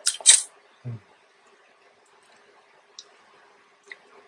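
A mouthful of spaghetti being slurped up: two quick, loud hissing sucks at the start. Then a soft low thump and a few faint clicks of eating.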